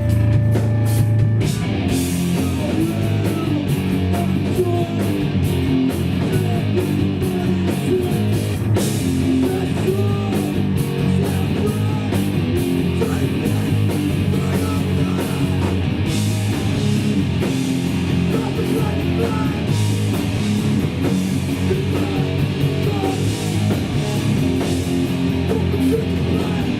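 Live hardcore punk band playing a loud, fast song: electric guitars, bass and drums, with steady drum and cymbal hits throughout.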